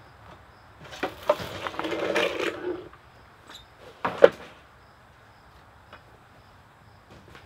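Stored gear being handled and shifted on shelves: a couple of seconds of scraping and rattling, then a single sharp clunk about four seconds in.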